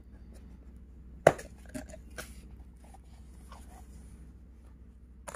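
Cardboard phone box being opened by hand: one sharp snap about a second in, then a few lighter clicks and soft rustling of the packaging.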